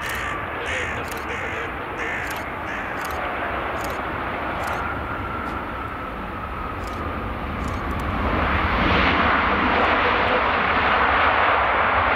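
Boeing 787 Dreamliner jet airliner landing and rolling out, with a steady engine noise and a whine that falls slowly in pitch. About eight seconds in, the engine noise swells and grows louder, as when reverse thrust is applied to slow the aircraft.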